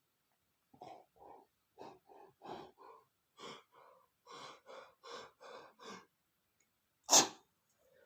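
A man's sneeze build-up: a run of short, catching breaths that come quicker toward the end, then one loud, sudden sneeze about seven seconds in.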